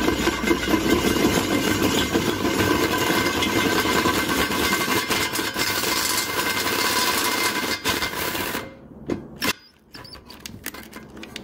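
Cordless hand drill with an 18.5 mm bit boring out the drain-plug hole in an aluminium oil pan, the motor running steadily under load. It stops suddenly about nine seconds in as its battery runs flat, followed by a couple of light knocks.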